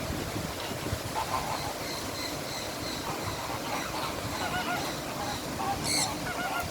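Birds calling: a run of short honking calls starting about a second in, with a sharp click near the end, over a steady low rumble of background noise.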